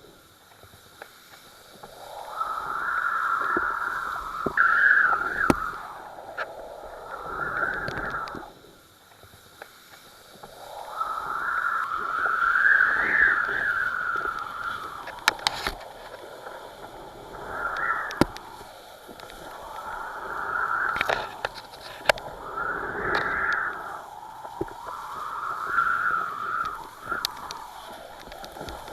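Rushing wind and water noise on a kitesurfer's camera in 30–35 knot winds, surging and fading every few seconds, with a few sharp taps.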